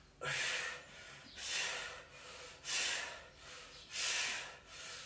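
A man breathing hard in a steady rhythm while exercising, with a sharp hissing breath about every second and a quarter: forceful exhales of effort, one with each repetition of a floor exercise.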